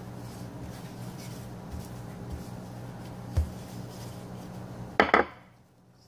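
Wooden rolling pin rolling out yeast dough on a floured granite counter, with soft, regular knocks as it goes back and forth over a steady low hum. A sharp double clack comes about five seconds in.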